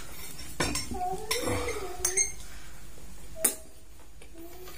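Bamboo satay skewers clicking and clattering against the plate, a few separate sharp clicks, the loudest about three and a half seconds in, with eating sounds in between.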